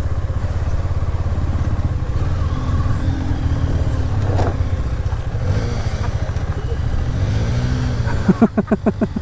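A 250 cc motorcycle engine runs at low speed with a steady low pulsing. Near the end comes a short burst of loud, rapid pulses.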